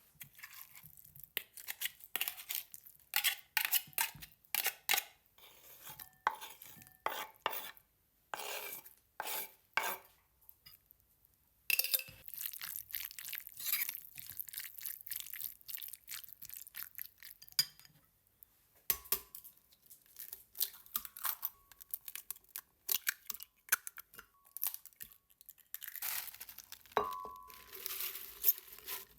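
Kitchen food preparation: utensils and dishes clinking, knocking and scraping in irregular taps with short pauses, with a brief ringing clink near the end.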